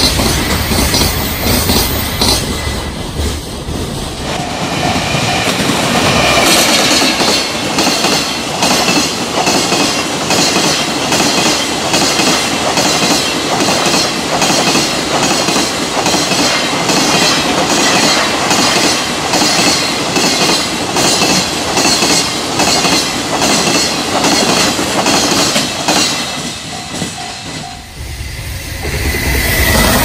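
Freight train of container wagons passing at speed, its wheels clattering over the rail joints in a steady, quick rhythm over a continuous rumble. Near the end the clatter fades briefly, then rises again as another train arrives.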